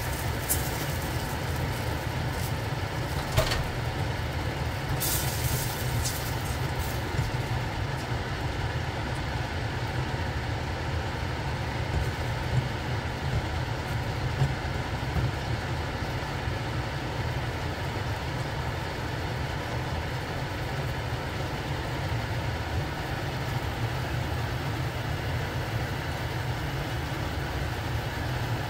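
Konnyaku reducing in a bubbling sauce in a stainless-steel saucepan on a gas stove: a steady low rumble under a soft bubbling hiss. A few light scrapes and knocks of a silicone spatula against the pot fall in the first half.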